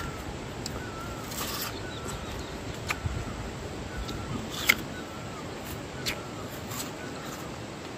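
Crunching bites and close chewing of a raw pear, with sharp crunches scattered through and one louder crunch about a second and a half in. A bird repeats a short rising-and-falling note about once a second behind it.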